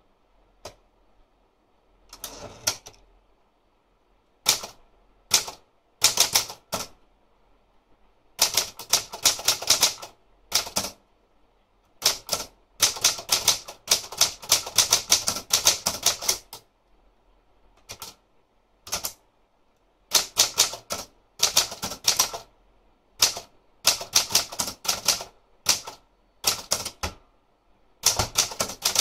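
Olympia Traveller De Luxe manual portable typewriter being typed on. Keys strike in quick runs of clacks with short pauses between them, starting about two seconds in.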